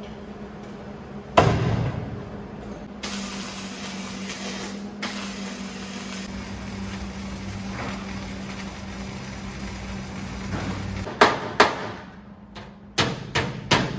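Wire-feed welding: several seconds of crackling, hissing arc over a steady low hum, with a loud knock before it. After the arc stops come two sharp metal strikes, then near the end a quick run of hammer blows on steel, about three a second.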